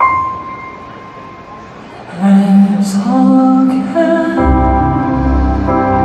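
A bell-like chime strikes once and rings away, then a live band's instrumental intro starts with held notes about two seconds in, and a deep bass line joins about four and a half seconds in.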